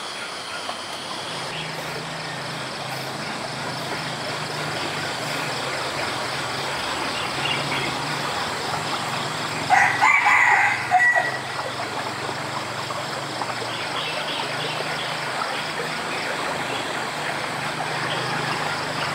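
A rooster crows once, loudly, about ten seconds in, over a steady rushing background noise.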